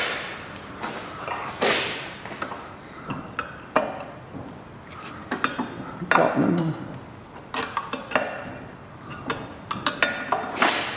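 Metal hand tools and loose engine parts clinking and knocking against each other and the bench: a string of sharp, irregular clinks, some ringing briefly.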